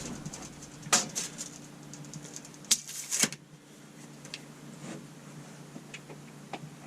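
A few sharp clicks and knocks, the loudest about a second in and two close together near three seconds in, with smaller ticks later, over a faint steady hum.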